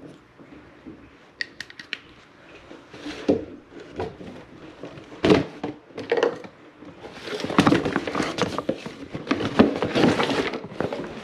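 Light clicks and knocks of a charger and its cable being handled on a counter, then, from about seven seconds in, a brown paper bag crinkling and rustling steadily as something is packed into it.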